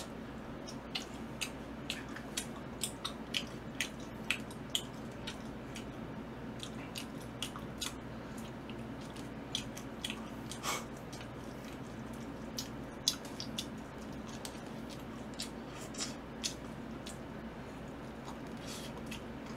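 Close-miked chewing and wet mouth clicks from a man eating sauced fried chicken and then pizza: a scatter of short sharp smacks at irregular intervals over a steady low hum.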